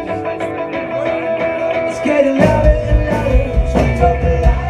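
Live reggae-rock band playing an instrumental passage: guitars and drums with a held trumpet line. The deep bass drops out and comes back in about halfway through.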